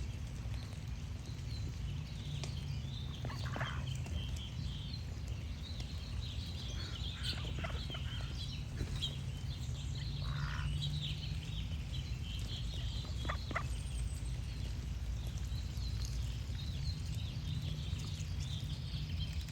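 Ducks quacking a few separate times among small songbirds chirping steadily, over a steady low rumble.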